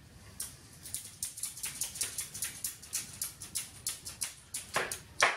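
Ratchet strap clamp being tightened by hand: the ratchet buckle clicks at a steady pace of about four clicks a second as the strap draws the glued mitre corners of a wooden frame together. Near the end there is a louder, sharper click.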